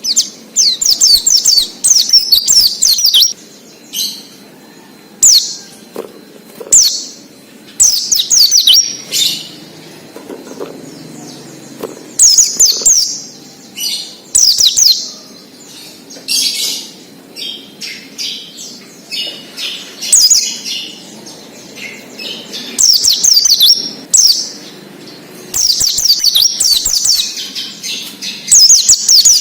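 White-eye (pleci, Zosterops) singing in the 'ngalas' style: repeated phrases of rapid, high, sweeping twittering chirps, one every second or two with short pauses between them.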